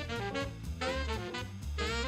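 Background music: an upbeat swing-jazz tune with saxophone or brass over a steady bass beat.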